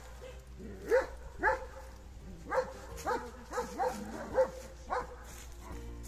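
A dog barking repeatedly: about eight short barks at uneven intervals.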